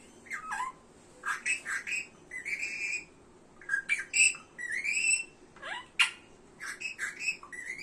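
Pet parrot chattering and whistling while at play: a quick string of short chirps, rising whistled notes and a few sharp squawks.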